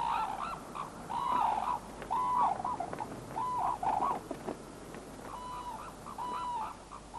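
Red-crowned cranes calling during their courtship dance: a run of short, pitched calls, roughly one a second, with a pause of about a second just past the middle.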